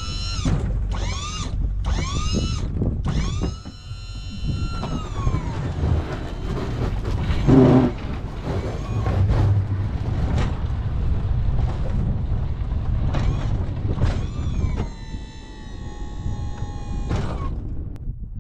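Tracked vehicle plowing snow with a 16 ft Sno-Power plow: a low rumble, with a mechanical whine that rises and falls in pitch in short runs over the first few seconds, then one longer rise and slow fall. A steadier whine returns about fifteen seconds in for about two seconds, and there is a brief loud clunk about eight seconds in.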